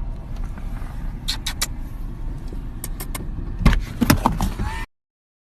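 A steady low rumble with scattered sharp clicks and a heavy knock about three and a half seconds in, followed by more clatter; the sound cuts off abruptly near the end.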